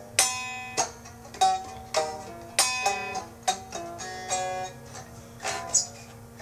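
Music on a plucked string instrument: single notes and small note clusters, each struck sharply and left to ring, at an uneven pace, over a steady low hum.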